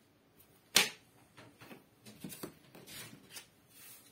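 Leather pieces and small items handled and set down on a workbench cutting mat: one sharp knock about a second in, then a few softer taps and rustles.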